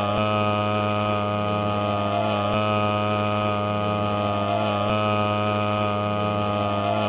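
A steady, loud buzzing hum made of many evenly spaced overtones, swelling slightly about every two and a half seconds.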